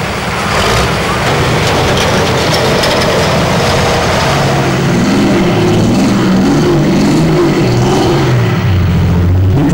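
Diesel engine of a Pro Stock pulling tractor running loudly, its pitch wavering up and down from about halfway through as the throttle is worked.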